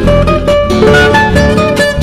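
Background music: guitar with a quick plucked melody over a steady bass.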